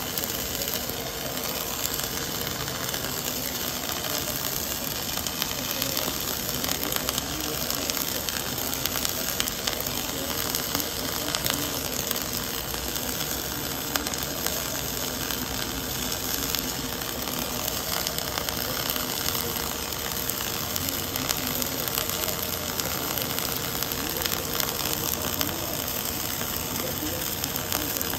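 Wire-fed MIG/MAG welding arc from an automatic pipe-welding carriage running on a track around the pipe: a steady crackling sizzle with a faint steady hum underneath.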